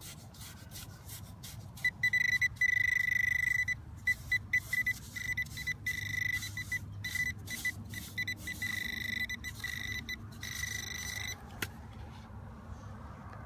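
A metal detector sounding a steady high electronic tone over a target buried in sand, breaking into quick beeps twice and cutting off near the end. Scraping and clicks from digging in the sand run underneath.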